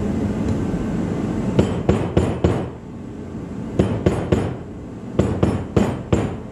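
Hand hammer tapping in three quick runs of light strikes: four taps about a second and a half in, three more near the middle, then four near the end.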